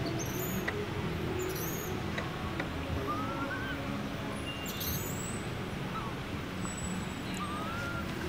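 Birds calling in the trees: a few short high chirps and two rising whistled notes, over a steady low background hum.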